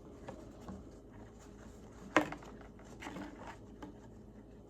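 Faint handling sounds of string being tied in a knot, with one sharp tap about two seconds in.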